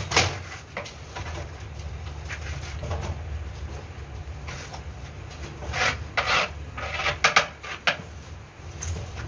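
A metal notched trowel made from a circular saw blade scraping cement adhesive across the back of a ceramic tile in a series of short strokes, over a steady low hum.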